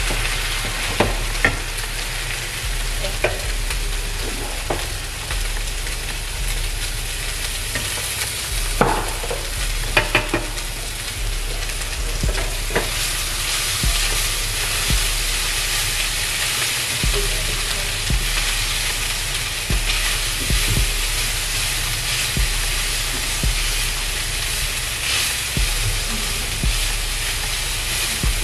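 Seasoned vegan meat sizzling in a frying pan as it is stirred, with a utensil now and then scraping and knocking against the pan, most sharply about nine to ten seconds in.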